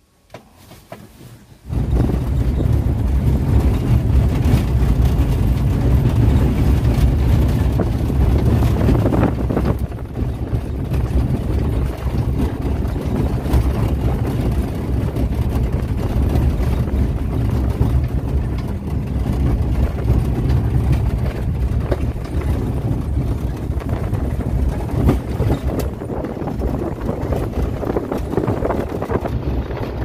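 Vehicle driving along a dirt road, heard from inside: steady low rumble of engine and tyres with wind on the microphone, starting about two seconds in.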